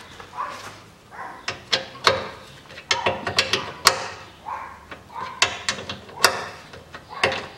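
A socket wrench on an extension tightening the lower engine mount's bolts: a run of irregular, sharp metallic clicks and clanks.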